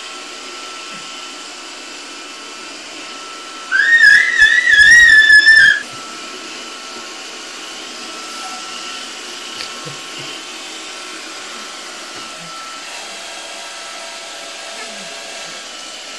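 Roomba robot vacuum running with a steady whirring hum. About four seconds in, a loud high warbling whistle-like tone wavers up and down for about two seconds, then stops.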